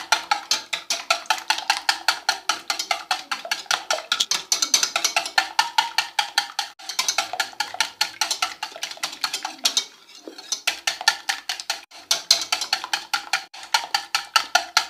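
Eggs being beaten by hand: a utensil clicking rapidly and evenly against the side of a bowl, about six strikes a second, with a few brief pauses.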